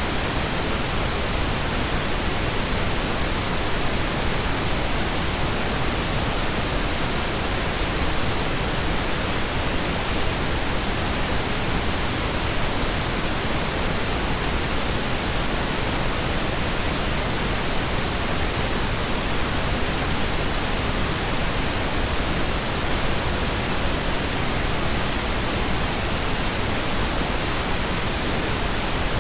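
Steady pink noise, an even hiss with no changes, tones or clicks.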